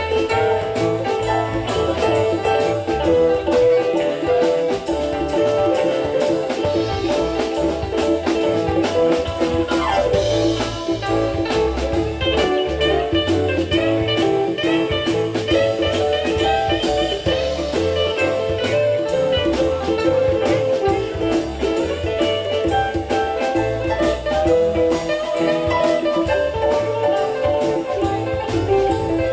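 Instrumental band music: a guitar playing over bass and a drum kit, without vocals.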